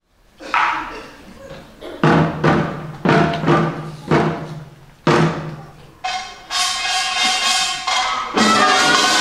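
Korean pungmul farmers'-band percussion opening a pangut: a slow series of single ringing strikes on gongs and drums, each dying away, then from about six seconds a continuous metallic ringing with a held high note. Near the end the full band comes in louder.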